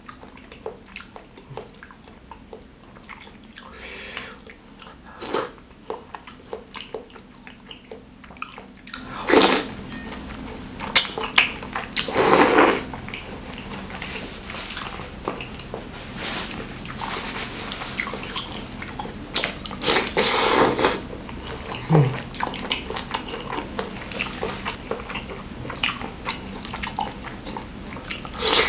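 Close-up mouth sounds of eating spicy mie ayam chicken noodles and fried meatball: wet chewing and lip smacking. A few louder, longer wet sounds come about a third of the way in, just before the middle, about two-thirds through, and at the end.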